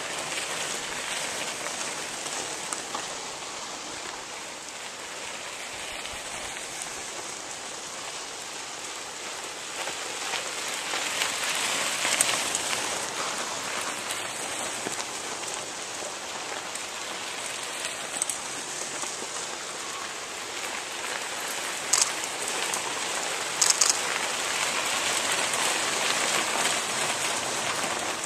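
Knobby mountain-bike tyres of a steady stream of riders crackling and hissing over a gravel road, swelling as groups pass close. A few sharp clicks sound in the last third.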